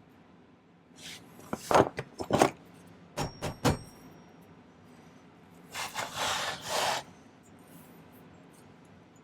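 Jewellery hand tools and sterling silver wire handled on a workbench: a few knocks, then two sharp metallic clicks with a brief high ring, then about a second of scraping.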